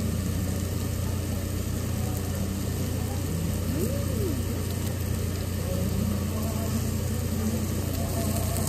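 Steady low hum of restaurant background noise, with faint voices and a short rising-and-falling tone about four seconds in.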